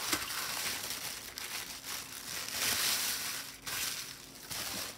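Tissue paper and thin plastic bags crinkling and rustling as they are unwrapped and smoothed flat by hand, with a few sharper crackles. It is loudest about halfway through.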